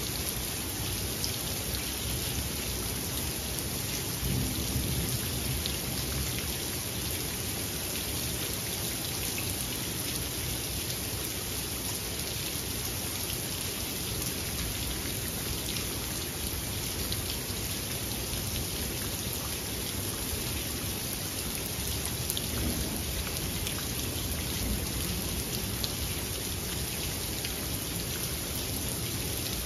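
Steady rain falling, with individual drops ticking close by. Low rumbles of thunder come about four seconds in and again around twenty-two to twenty-six seconds in.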